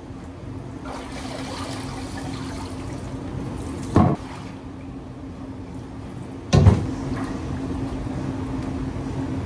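Water running from a kitchen sink faucet over a steady hum, with two loud clanks about four and six and a half seconds in as the metal grill grates are knocked against the sink.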